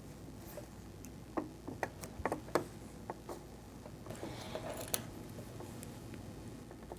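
Faint, scattered small clicks and soft fabric rustling as a seam ripper picks out a few stitches along a zipper seam.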